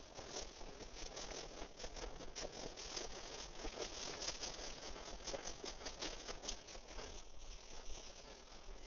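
Dry grass and brush crackling and rustling underfoot and against clothing as a person pushes through cover on foot: a dense patter of small snaps, thinning slightly near the end.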